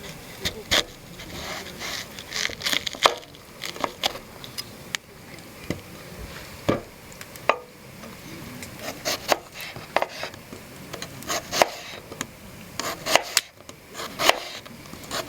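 Knife chopping on wood: irregular sharp knocks, some in quick runs of two or three, with light scraping between them.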